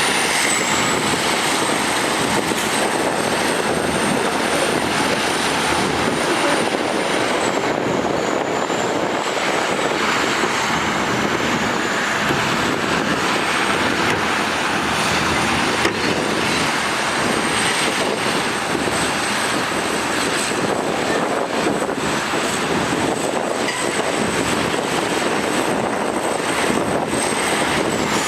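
Heavy diesel earthmoving machinery running steadily under load, with a thin high whine that dips in pitch now and then.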